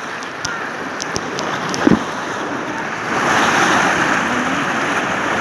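Rushing, splashing river water around a tube, a steady noise that grows louder about three seconds in, with a few faint clicks.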